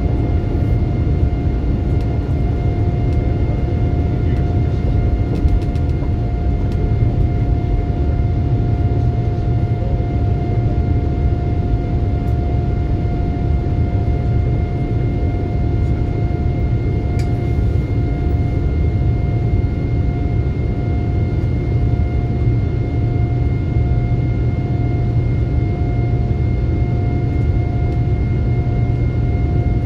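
Boeing 787-9 Dreamliner heard from inside the cabin during the climb after takeoff: a steady low roar of the jet engines and airflow, with a constant whine held above it.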